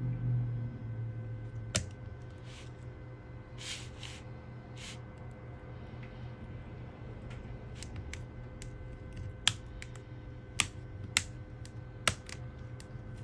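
Small tools working on a smartphone during a screen repair: a handful of sharp plastic-and-metal clicks, mostly in the second half, and a few brief scrapes early on, over a steady low hum.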